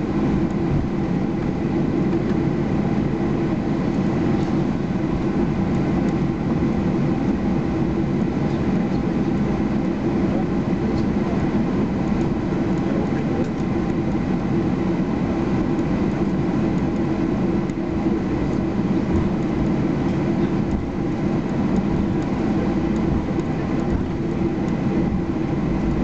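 Steady cabin noise of a Boeing 737-800 taxiing, heard from inside the cabin over the wing: the CFM56-7B engines running at idle with a constant low hum of engine and rolling noise and a faint steady high whine.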